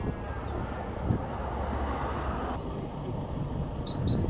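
Steady engine and road rumble of a moving van heard from the back, with wind buffeting the microphone; a few short high chirps sound near the end.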